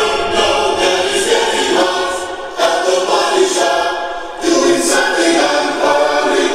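Choral, a cappella-style singing played back through a Porsche 911 SC's aftermarket car audio system (Audison DSP amplifier and speakers, Helix subwoofer), heard inside the cabin.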